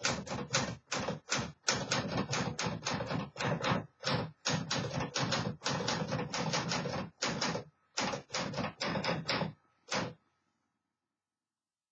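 1951 Smith Corona Silent typewriter being typed on: a quick run of key strikes, several a second, that stops about ten seconds in.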